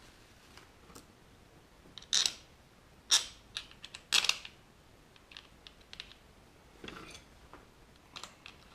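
Sharp metallic clicks and clinks of hand tools and engine parts being handled during crankcase assembly, the three loudest about two, three and four seconds in, with a few fainter taps later.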